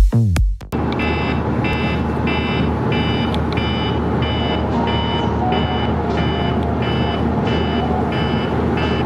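Smartphone alarm going off, a repeating electronic beep about twice a second, over a steady hiss.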